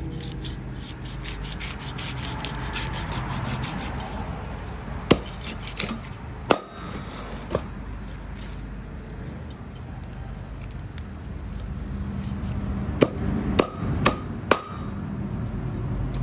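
Knife and cleaver cutting through a large raw fish on a wooden chopping board: a fast run of scraping strokes in the first few seconds, then sharp knocks of the blade against the board, three around the middle and four close together near the end.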